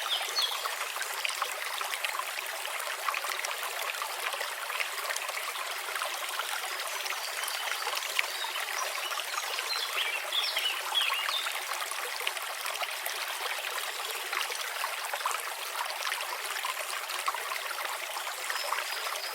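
Babbling brook: running water trickling steadily, with many small splashes and drips.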